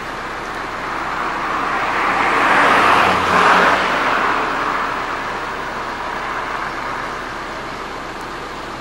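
A motor vehicle passing by, its noise swelling to a peak about three seconds in and then fading away, over a steady background of traffic.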